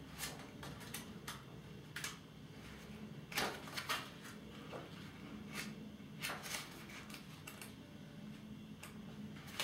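Pages of a paperback book being leafed through by hand: faint, scattered rustles and flicks, a few louder ones about three and a half to four seconds in.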